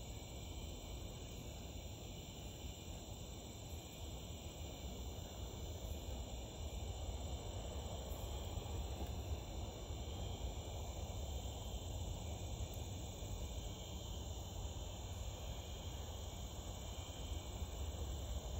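Crickets chirping in a steady chorus of high, unbroken tones, over a low steady rumble.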